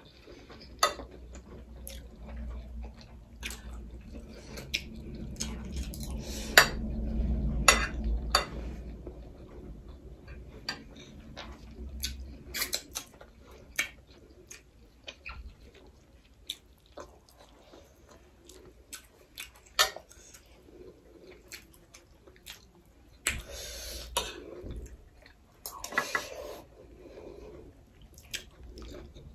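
Metal spoons clinking and scraping on ceramic plates in many short, irregular clicks, with chewing between them and a couple of louder knocks about seven seconds in.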